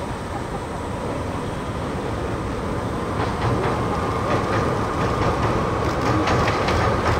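Two DE10 diesel locomotives running double-headed, their engines droning as they cross a steel railway bridge and growing louder as they approach. From about three seconds in, the wheels add a clickety-clack of short clicks, two or three a second.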